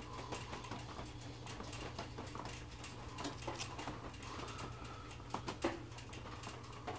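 Single-edge razor blade shaving and trimming layered cork on a saxophone palm key riser: irregular small scratchy cuts and clicks, with a sharper one about five and a half seconds in. A steady low hum runs underneath.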